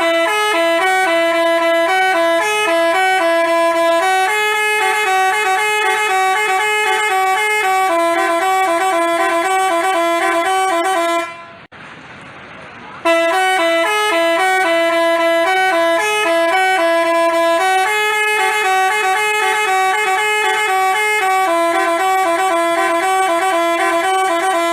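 Telolet basuri horn playing a fast stepped multi-note melody. It stops about halfway through, then plays the same tune again from the start.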